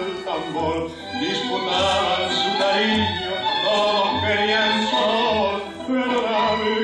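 Recorded tango music with a singing voice over a regular bass beat, heard through the hall's sound system.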